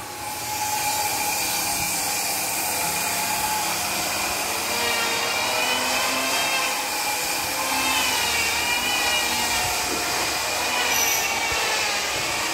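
Steady machinery noise, like power tools running in a woodworking shop, with a faint wavering whine over it.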